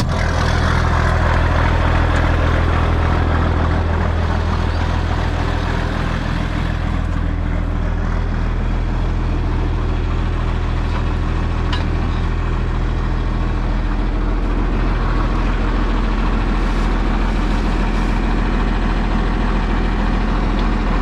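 Tractor engine running steadily, its note shifting slightly about two-thirds of the way through.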